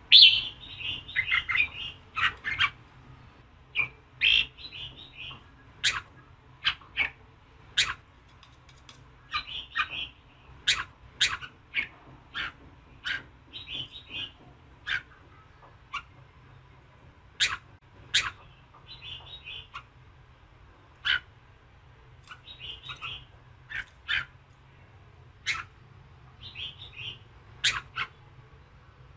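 Red-whiskered bulbul (chào mào) calling: short chirping phrases alternate with sharp, abrupt notes, a few each second with brief pauses. It is the combative 'giọng kình' call used to rouse and excite male bulbuls.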